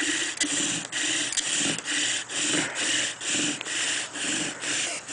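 Bow drill running: a poison hemlock spindle grinding in a western red cedar hearth board, rasping in even strokes about two a second, with a brief dip at each reversal of the bow. The drill is biting well on its way to a coal.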